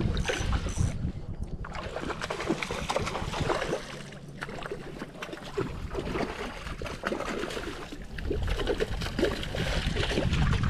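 Wind blowing across the microphone outdoors by water, an uneven rush with a low rumble that eases off for a moment partway through.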